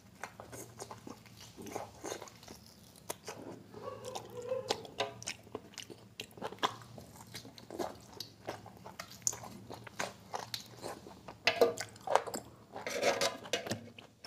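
A man chewing and biting mutton biryani and curry, gnawing meat off a mutton bone, with many short wet mouth clicks; a couple of louder bites near the end.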